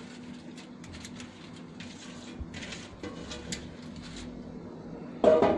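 Faint rustling and scraping as chopped potatoes, carrots and onion are tipped and spread over the meat in a baking tray, over a steady low hum. A short loud voice-like sound comes near the end.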